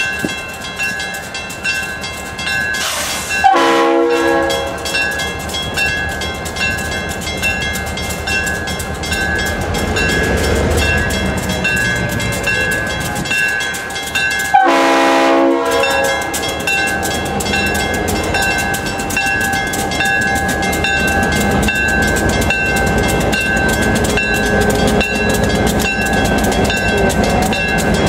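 Freight train passing close by, its diesel locomotives running loud. Two short horn blasts from a Leslie RS-3L three-chime air horn, the first about three and a half seconds in and a longer one near the middle, then the cars roll past.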